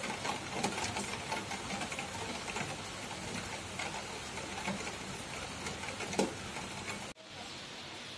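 Steady rain falling, a dense patter with many small ticks and a few louder taps. About seven seconds in it cuts off sharply for a moment, then comes back a little quieter.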